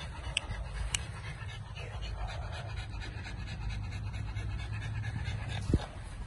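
American Bully puppy panting steadily, with a few light clicks and one sharp thump near the end.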